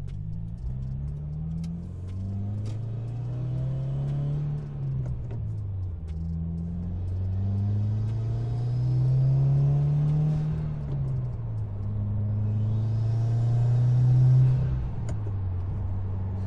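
2019 Subaru WRX's turbocharged 2.0 L flat-four (FA20DIT) with an Invidia R400 cat-back exhaust, heard from inside the cabin, accelerating through the gears. The engine note climbs three times and drops at each upshift. The last pull is the loudest before the revs fall back to a steady cruise near the end.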